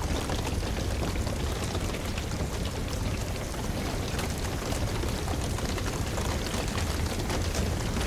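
Steady rain mixed with the crackling of a burning wood fire: a constant hiss over a low rumble, dotted with many small sharp pops.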